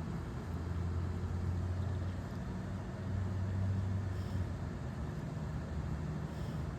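Steady low mechanical hum, like a motor or engine running, swelling slightly partway through.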